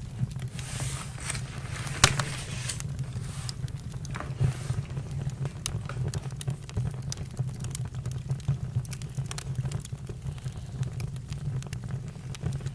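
Wood campfire crackling, with many small irregular pops and one sharp pop about two seconds in, over a steady low rumble.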